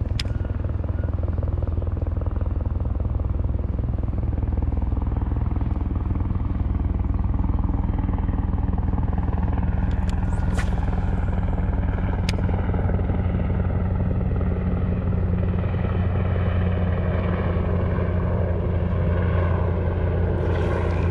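A motor drones steadily with a low hum of several pitches, growing a little louder in the second half. A few sharp clicks come through it, about ten and twelve seconds in.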